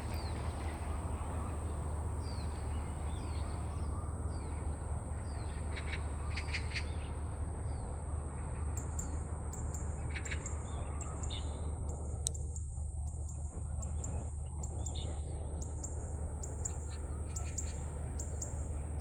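Wild birds calling with short, sharp chirps and ticking notes, scattered at first and more frequent in the second half, over a steady low rumble and a steady high-pitched whine.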